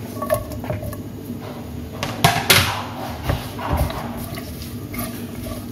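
Sliced chillies and green tomatoes tipped off a cutting board into hot oil in a ceramic-coated wok with frying shallots and garlic, sizzling as they land. A spatula then stirs and scrapes them around the pan. The loudest bursts come about two seconds in.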